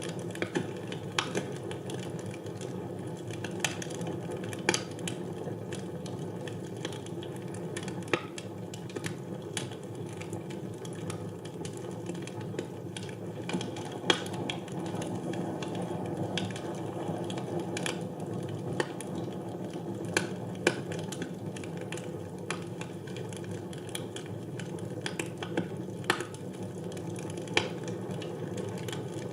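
Wood fire burning in a fireplace: a steady low rushing of flames with irregular sharp crackles and pops scattered throughout.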